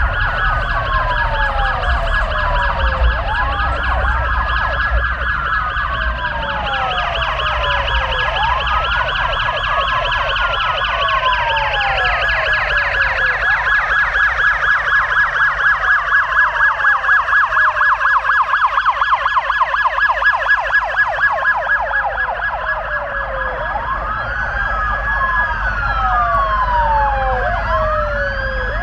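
Police car sirens sounding, with pitch sweeps falling over and over, more than one siren overlapping. In the middle the siren changes to a fast warbling yelp, then goes back to the sweeps.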